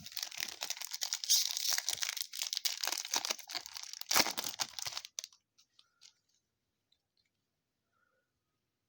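A trading-card pack wrapper being torn open and crinkled, a dense crackling for about five seconds with sharper loud crackles, then near silence.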